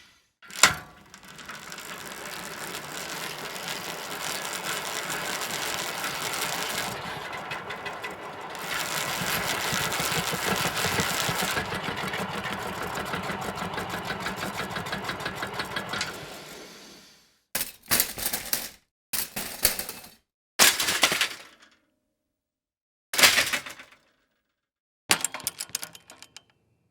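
A sharp click, then a bicycle running for about sixteen seconds with its drivetrain ticking fast and finely, louder from about halfway through. After that come five short, separate bursts of the same kind of mechanical sound.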